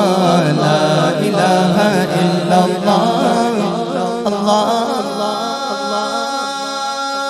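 Male voice singing a devotional hamd in a chanting style, the melody turning and sliding, then settling into one long held note from about five seconds in.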